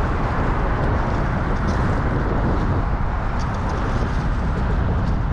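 Steady wind rumble on the microphone, with the wash of choppy open water around a small boat.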